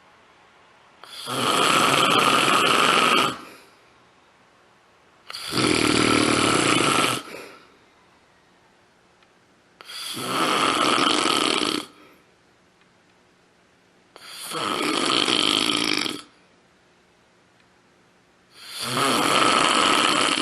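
Loud, rasping snoring from a sleeper: five long snores, each about two seconds, coming about every four and a half seconds, with near-quiet breathing between them.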